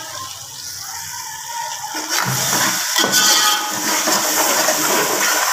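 Onion and tomato masala frying in oil in a metal pot, sizzling. About two seconds in, a metal ladle starts stirring and scraping through it, and the sizzle gets louder.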